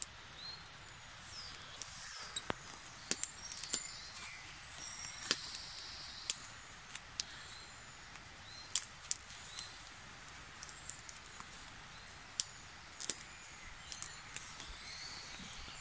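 Irregular sharp clicks and light scraping from a split blackberry bramble stem being worked by hand, its white inner core cleared out for cordage. Faint short bird chirps and a steady outdoor hiss sit behind it.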